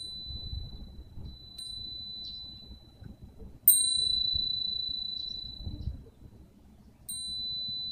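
Nanbu cast-iron wind chime (furin) rung by the wind: its clapper strikes three times, the loudest about halfway through, each strike leaving one high, clear tone that rings on and fades slowly. A low wind rumble on the microphone lies underneath.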